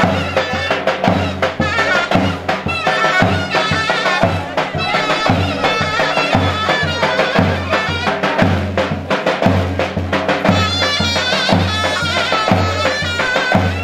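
Folk-style music: a reedy wind instrument plays a wavering melody over a steady drum beat.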